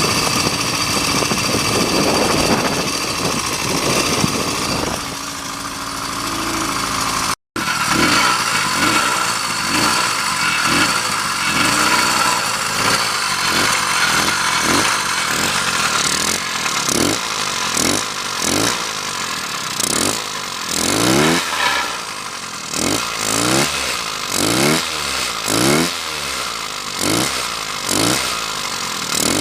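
80cc two-stroke motorized-bicycle engine running, with a brief cut about seven seconds in. From about halfway its revs rise and fall over and over, about once a second.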